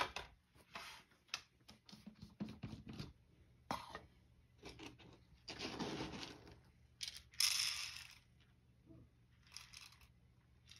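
Cat breakfast being made ready by hand: a run of small clicks, knocks and rustles of packaging and dishes, with a longer rustle about six seconds in and a brief hissing tear or rustle about seven and a half seconds in.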